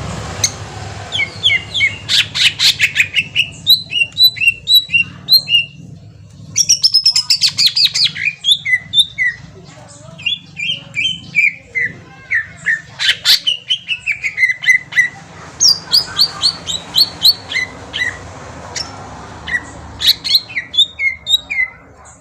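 Green leafbird (cucak ijo) singing a fast, varied song: quick runs of short whistled notes, many stepping down in pitch, broken by a few fast rattling trills. The song stops just before the end.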